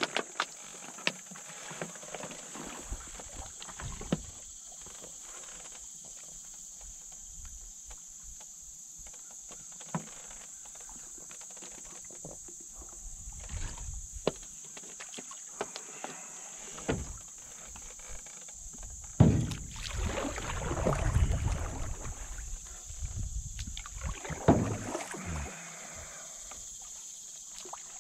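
Canoe being paddled on calm water: paddle strokes with scattered sharp knocks, over a steady high-pitched hiss. A louder stretch of splashing and rustling comes about two-thirds of the way through.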